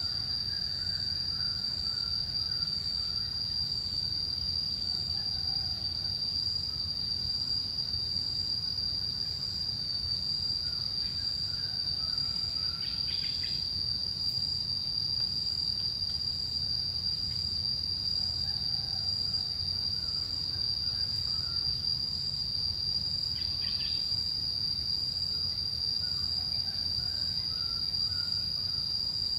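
Forest insects droning in one steady, unbroken high-pitched tone, with faint bird chirps here and there, two short downward calls, and a low rumble underneath.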